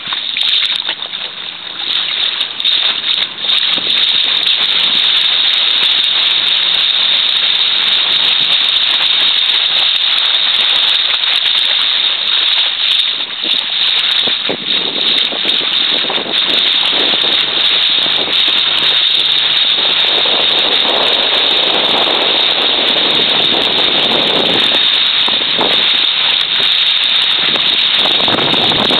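Steady loud rushing of wind and water heard from a boat moving over choppy water, with irregular surges of splashing in the second half.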